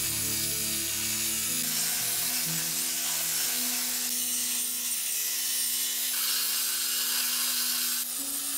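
Electric belt grinder with an abrasive belt grinding a scrap-steel blade blank: a steady hiss of steel on the belt that shifts in level a few times as the blank is pressed and moved. Background music with changing notes plays underneath.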